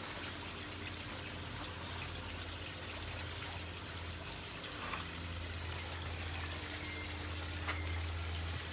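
Steady trickle of running water from an aquaponics system, with a low steady hum under it and a couple of faint clicks about five seconds in and near the end.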